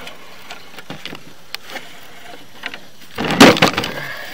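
Sewer inspection camera's push cable being fed into the line, with scattered light clicks and then a loud rough scraping rattle lasting under a second, about three seconds in.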